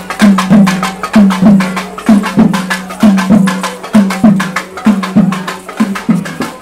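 Barrel drum, thavil-style, played fast: sharp stick strokes in a steady rhythm, many of them with a deep ringing note under the crack.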